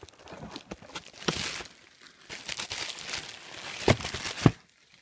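Packaging being unwrapped, crinkling and tearing in bursts, with two sharp knocks near the end.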